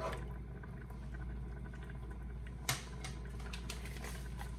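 A pot of pelau simmering, with faint bubbling and crackling over a steady low hum, and a single sharp clack a little past halfway.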